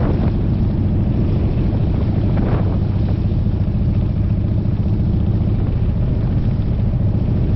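Motorcycle engine running at a steady pace, an even low drone with no revving.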